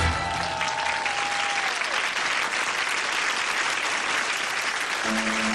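A studio audience applauding, a steady wash of clapping. A falling musical tone fades out in the first two seconds, and a song's backing music starts with held notes about five seconds in.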